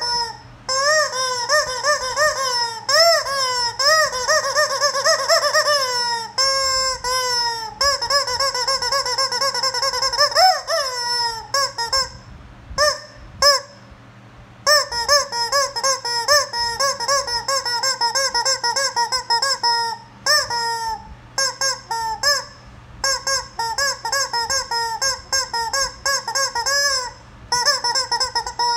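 Rubber chicken squeeze toy squeaking over and over, short rising-and-falling squeals at about two a second as it is squeezed and released, with a pause of about two seconds near the middle.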